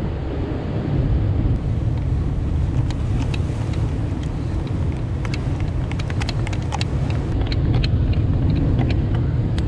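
Steady low wind noise on the microphone, with scattered light clicks from hands handling tackle.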